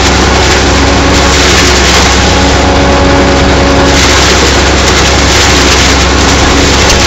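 Tractor's diesel engine running loud and steady under load, pulling a working PZ Zweegers 80 S forage harvester through maize, the engine note mixed with the harvester's machine noise.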